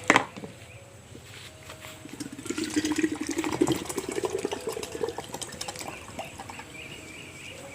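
A sharp knock, then liquid pouring and splashing into a container for about three seconds, starting a couple of seconds in and tailing off.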